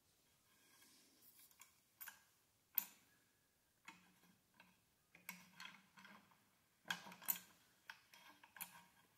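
Faint, irregular metallic clicks and clinks from a ball joint press as its threaded screw is turned by hand with a bar, pressing a new swingarm bearing into its bore. The clicks come a little more often in the second half.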